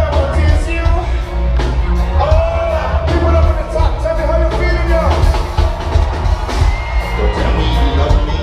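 Live band playing loudly with heavy bass and regular drum hits, a singer holding long notes over it, heard as a concert audience hears it.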